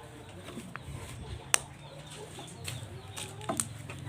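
Slime being handled, with scattered sticky clicks and pops, the sharpest about one and a half seconds in and a small cluster near the end, over a faint low hum.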